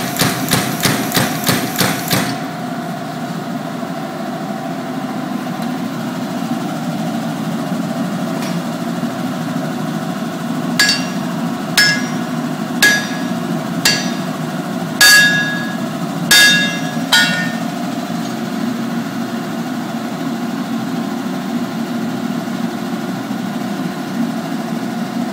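Big BLU pneumatic power hammer pounding hot steel in rapid, even strokes, about three a second, stopping about two seconds in. Later come seven ringing metal-on-metal hammer blows, about one a second, over a steady hum.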